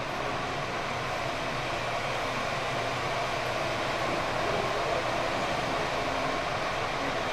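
Steady rumble and road noise of a moving vehicle.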